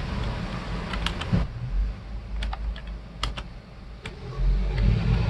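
Computer keyboard keys pressed one at a time, a handful of separate clicks spread over a few seconds, over a low background hum that grows louder near the end.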